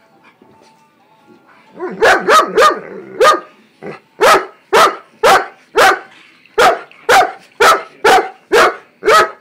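A dog barking loudly: a quick flurry of barks about two seconds in, then a steady run of single barks about two a second, the barking of dogs meeting and play-fighting.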